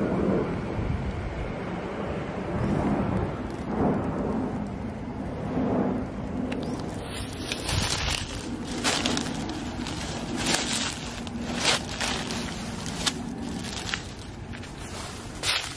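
Irregular rustling and crackling, with many short, sharp crackles in the second half.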